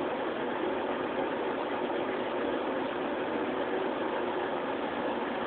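A steady, even mechanical hum with no change in level.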